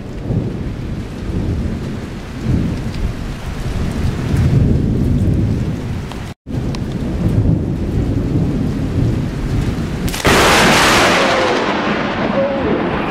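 Rain falling through a thunderstorm with low rolling thunder. About ten seconds in, a lightning strike very close by gives a sudden, very loud crack of thunder that fades over the next few seconds. The sound cuts out for a moment about six seconds in.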